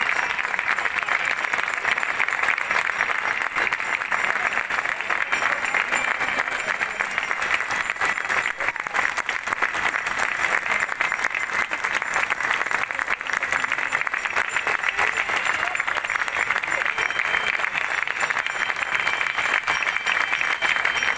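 Crowd applauding steadily and without a break.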